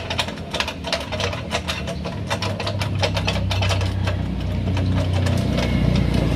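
Rapid, irregular metallic clicking and clinking from hand tools and parts as a car's steering rack is worked on, over a steady low mechanical hum.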